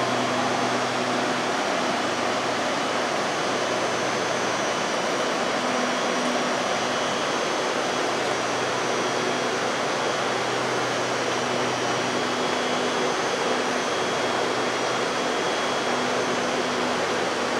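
Steady hiss and hum of a Hitachi electric commuter train of the SRT Dark Red Line standing at the platform, with a low even hum and faint thin high whines running through the noise.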